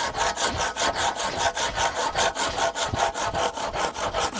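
Rapid, steady rhythmic scraping, about eight strokes a second, like a tool being worked back and forth against a hard surface.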